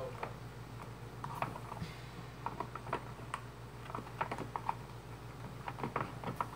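A stirring stick clicking and tapping irregularly against a small plastic tub while it stirs a glue-based slime mixture.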